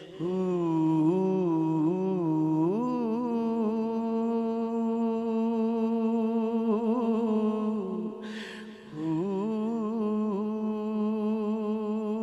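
A solo male voice sings a Punjabi poem in long drawn-out notes, wavering through melismatic ornaments. He breaks for a breath about eight seconds in, then holds another long note.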